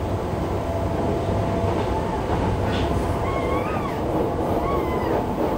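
Running noise of a Yokohama Municipal Subway 3000A car with Mitsubishi GTO-VVVF inverter: a steady rumble of wheels on rail with a held hum, and wavering wheel squeals about halfway through.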